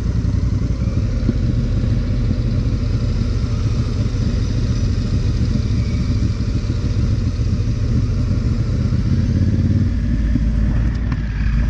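Honda Africa Twin's parallel-twin engine running steadily under way, with wind rumbling on the microphone that grows heavier near the end.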